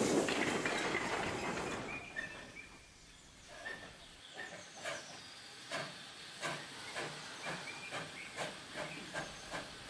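Steam goods train: a hiss fading away over the first two seconds, then a slow run of wagon wheels clicking over rail joints, about two clicks a second.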